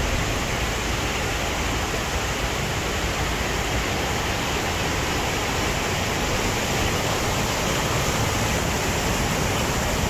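Waterfall's falling water: a steady, unbroken rush of noise.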